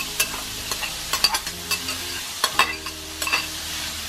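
Italian sausage sizzling in a stainless steel skillet as chopped peppers, onion and mushrooms are scraped in from a bowl with a slotted metal spatula. A steady hiss runs underneath many sharp clicks and scrapes of the spatula against the bowl and the pan.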